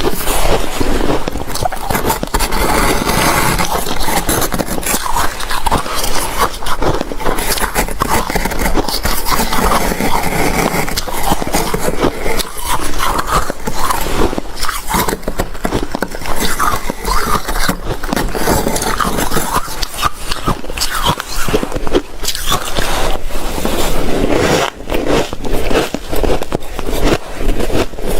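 Frosty shaved ice crunching close to the microphone as it is scooped and chewed: a loud, dense, unbroken run of crackling crunches.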